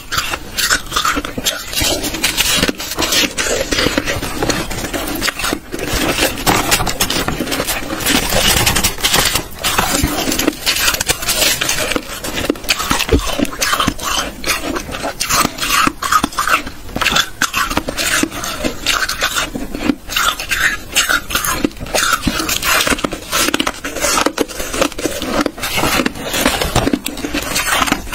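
Close-miked biting and crunching of hard ice, a dense run of sharp cracks and crackles, with gloved hands scraping the ice in a plastic tub.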